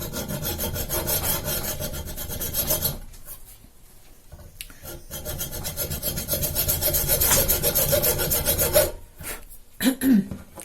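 Hand saw cutting through an acrylic blank clamped in a vise: a rasping run of strokes for about three seconds, a short pause, then a longer run of about four seconds. A few short knocks follow near the end.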